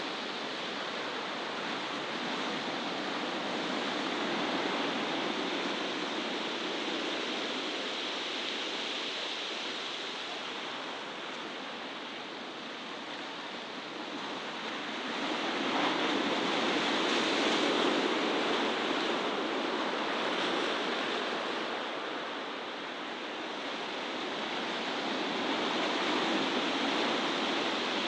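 Sea surf breaking and washing over rocks: a steady rush that swells louder about halfway through.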